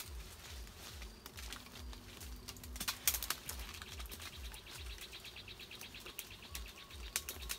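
Leaves and branches rustling with scattered sharp cracks as a man climbs down through a tree. About halfway through, a fast pulsing insect trill starts up and keeps going.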